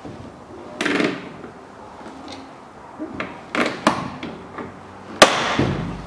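Scissor-action (lazy-tongs) hand rivet gun setting a blind pop rivet in the door's top trim strip: a few clacks and squeezes as the tool's arms are worked, then a sharp crack a little past five seconds in, the loudest sound, as the rivet's mandrel snaps off.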